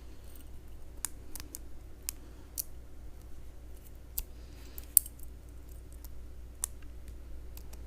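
Light, sharp metallic clicks and ticks, about eight at irregular spacing, the loudest about five seconds in: small pin-tumbler parts and tools being handled while a Brinks R60 padlock's cylinder is taken apart.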